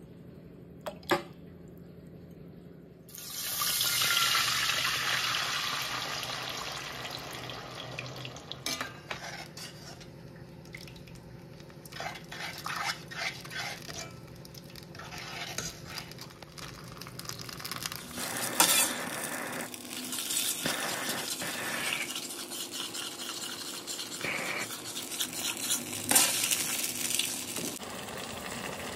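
A liquid mixture poured into a stainless steel pan, starting suddenly about three seconds in as a loud rush that slowly fades. After that, a metal slotted spoon stirs the thick, bubbling mixture, with irregular clinks and scrapes against the pan.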